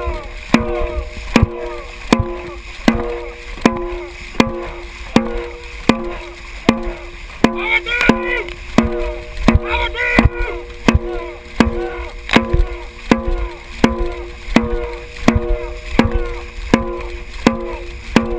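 Dragon boat drum beaten at a steady beat, about one hit every three-quarters of a second, each hit ringing briefly, pacing the paddlers' strokes over the rush of water along the hull. Brief shouts from the crew come about eight and ten seconds in.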